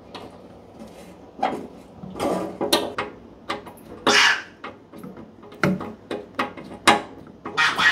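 Irregular clicks, clinks and knocks of screwdrivers and metal parts as a wood stove's blower motor and its mounting bracket are unscrewed and worked loose.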